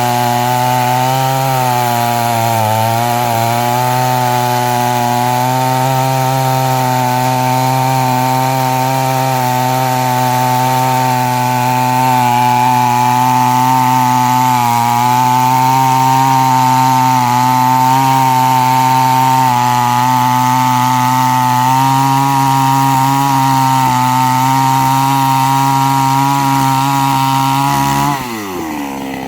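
Chainsaw engine running at high revs while cutting through a tree trunk, its note holding steady with small dips under load. Near the end the pitch falls sharply as the throttle is let off.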